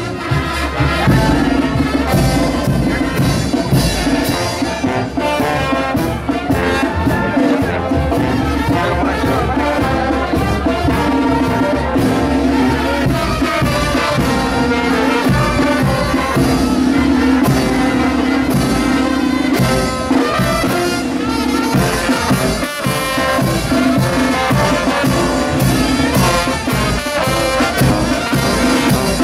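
Live Mexican street brass band (banda de viento) playing a chinelo dance tune: trumpets and trombones over a steady beat of snare and bass drum.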